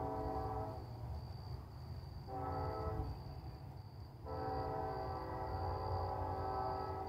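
A diesel locomotive's multi-chime air horn sounds the tail of a grade-crossing signal: a long blast cuts off under a second in, a short blast follows a couple of seconds in, then a final long blast is held. Beneath it runs the low rumble of the approaching coal train.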